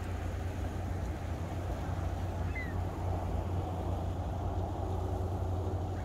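Steady low rumble, with one faint, short bird call, falling in pitch, about two and a half seconds in.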